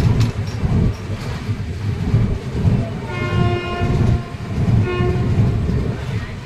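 A train horn sounds one long blast, then a short second blast about a second later, over a low rumble.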